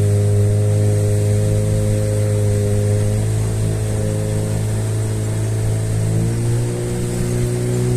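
Small boat's motor running steadily under way, its engine note stepping slightly higher about six seconds in.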